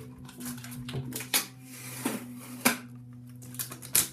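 Hands working at the plastic M3D Micro 3D printer and its packing foam and tape, giving several sharp clicks and knocks over a steady low hum.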